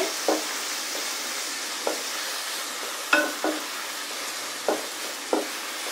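Cubed potatoes and sliced onion sizzling in hot sunflower oil in a metal pot, stirred with a spatula that knocks and scrapes against the pot a handful of times.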